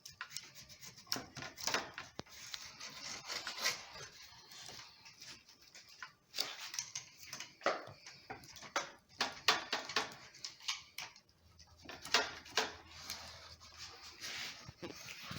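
The grooved wheel of a screen spline roller pressing rubber spline and screen mesh into a window frame's channel: an irregular run of short scratchy rubbing strokes.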